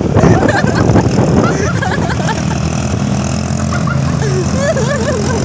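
A vehicle engine running steadily, with voices over it.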